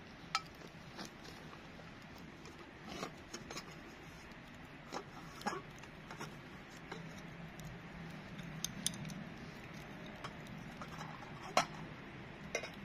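Camp gear being handled: a cloth pouch rustling and a small metal tin and its lid clicking and clinking, over a small wood campfire crackling. Scattered sharp ticks throughout, the loudest near the end.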